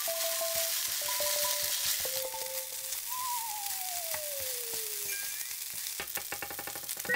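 Fried rice with thin-sliced pork belly sizzling in a hot frying pan while a wooden spatula stirs it. The moisture is cooking off and the rice is crisping into a crust against the pan.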